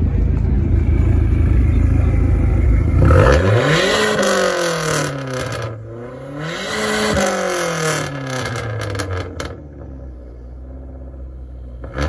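Four-cylinder engine of a parked Dodge Neon revved twice, its pitch climbing and falling each time, after a loud low rumble. It then drops back to a quieter idle near the end.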